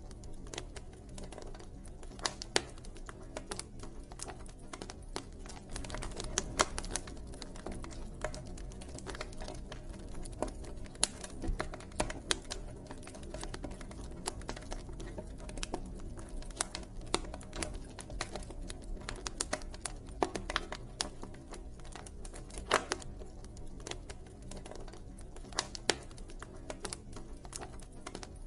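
Campfire crackling: wood burning with irregular sharp pops and snaps, some louder than others, over a steady low rumble of the flames.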